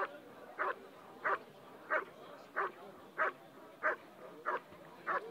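German Shepherd Dog barking steadily and rhythmically at a motionless protection helper, about three barks every two seconds: the guard-and-bark (hold and bark) of an IGP protection routine, the dog holding the helper in place without biting.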